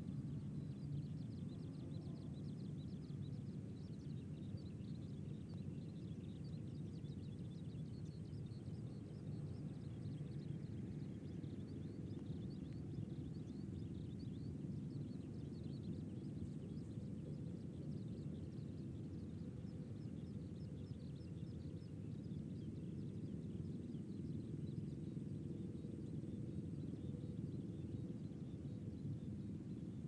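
Steady low-pitched outdoor background noise, with faint rapid high-pitched ticking above it throughout.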